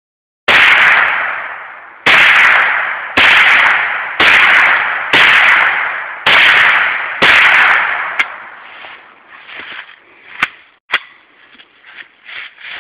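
Ruger 10/22 .22 rifle fired seven times, about one shot a second, each report trailing off in a long echo. A few faint clicks follow once the shooting stops.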